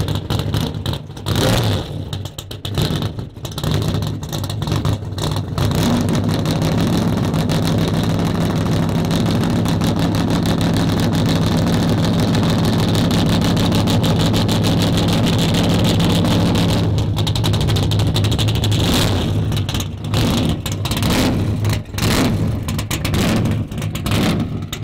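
Supercharged 632-cubic-inch big-block V8 in a Chevelle SS running with its hood up. It starts with a choppy, lopey idle and throttle blips, smooths into a steady run for about ten seconds, then drops back to the choppy lope with blips.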